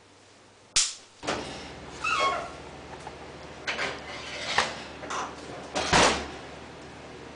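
A sharp click, then an electric oven being opened and emptied: a metal muffin tin is scraped out over the oven rack and set down on the stovetop with clanks, and the oven door is shut with a loud clunk about six seconds in, over a low steady hum.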